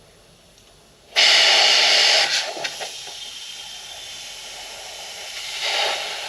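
Compressed air hissing through an air chuck as the inner tube of a small go-kart tire is inflated. It starts abruptly about a second in, is loudest for about a second, then settles into a steadier hiss that swells again near the end.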